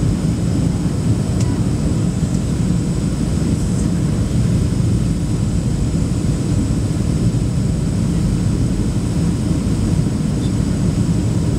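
Steady low rumble of cabin noise inside a Boeing 737-800 on approach with its flaps extended: airflow over the airframe and its CFM56-7B turbofan engines.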